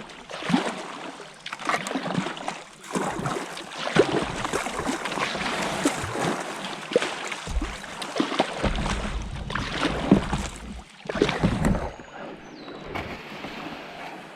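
A kayak being pulled up at the river's edge as the paddler gets out: plastic hull and gear knocking and scraping, with water splashing. Gusts of low rumble, most of all in the second half.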